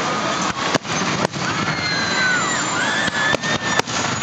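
Aerial fireworks shells bursting, about five sharp bangs at irregular intervals, over steady background noise.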